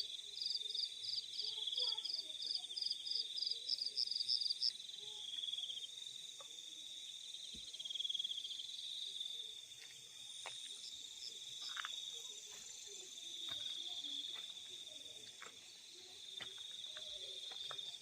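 Field crickets at night: a steady, high trill that swells and fades, with a second insect's rapid chirps, about three a second, over it until about five seconds in.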